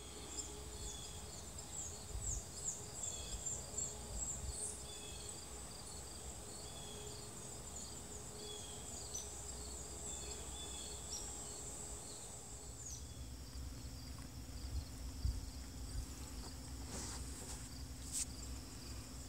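Summer insects buzzing in a steady high drone, with many short high chirps over it in the first half and a low rumble underneath. About two-thirds of the way in, a steady low hum joins and continues.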